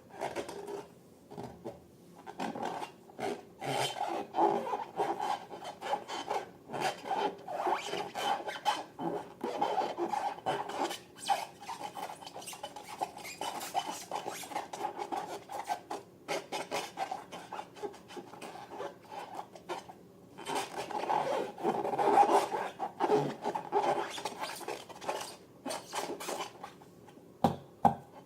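Continuous, irregular rubbing and scraping strokes from hands working balloons and slime materials, with short pauses twice along the way.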